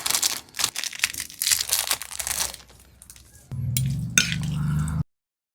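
Close-up crunching and crinkling from chewing crunchy food, in bursts for about three seconds. A low steady hum with a click follows, then the sound cuts off suddenly near the end.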